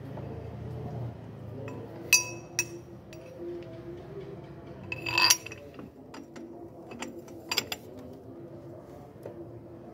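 Metal hand tools clinking in an engine bay as a socket wrench and extension are worked on engine-mount bolts. There are several sharp, ringing clinks, loudest about two seconds in and again about five seconds in, with a few lighter ones near the end.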